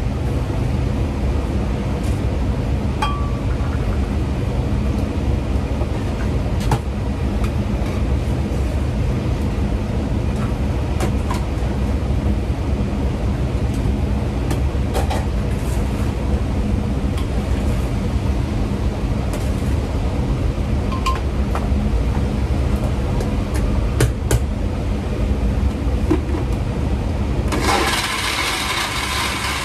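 Steady kitchen hum with scattered clinks of metal cans and containers as ingredients go into a blender jug. Near the end an electric blender switches on suddenly and runs, blending a ginger and garlic sauce.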